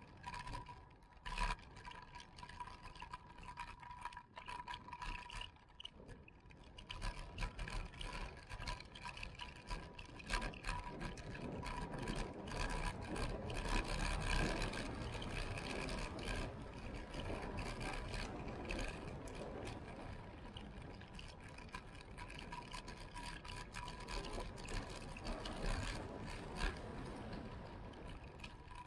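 Road bike coasting fast downhill on asphalt: a steady rush of tyre and wind noise that grows loudest around the middle, with frequent small knocks and rattles from bumps in the road.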